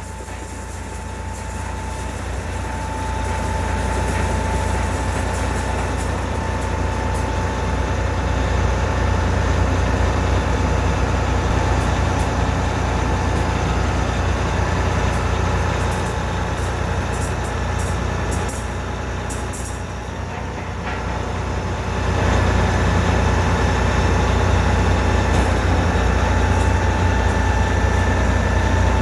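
Heavy diesel engine of a truck-mounted well-drilling rig running steadily with a deep rumble and a faint whine. It builds up over the first few seconds, eases briefly, then runs louder again from about 22 seconds in.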